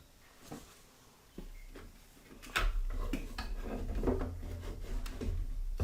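Plastic Lego pieces clicking and rattling as they are handled and fitted, a scatter of short clicks, with a low rumble of handling on the table that sets in about a second and a half in and grows louder about halfway through.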